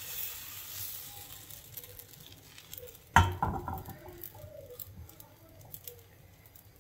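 Palappam batter hissing faintly in a hot nonstick pan as the pan is swirled, fading away, then one sharp metal clank about three seconds in as the pan comes down on the gas stove's grate, ringing briefly. A few faint ticks follow.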